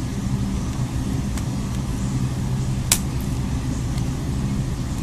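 Steady low rumble and hum in the background, with a few light clicks and one sharper click about three seconds in, typical of small tools and plastic parts being handled during a phone teardown.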